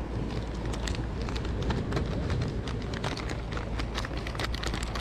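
Plastic soft-bait packets crinkling and rustling as they are handled: a rapid, irregular crackle that grows busier in the second half, over a steady low rumble of wind and sea.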